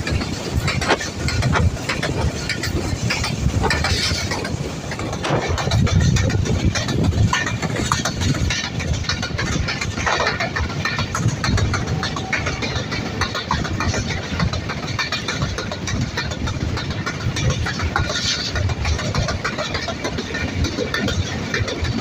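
Inside a moving passenger train coach: a steady low rumble from the running gear, with irregular rattles and clicks from the coach and the track.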